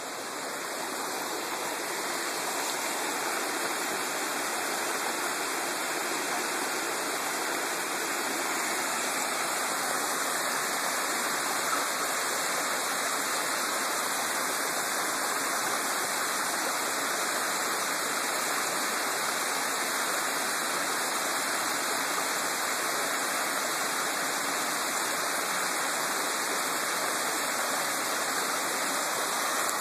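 Steady rushing and splashing of a small woodland stream cascading over a rocky waterfall, running with rain from Hurricane Irene. It grows a little louder in the first couple of seconds, then holds steady.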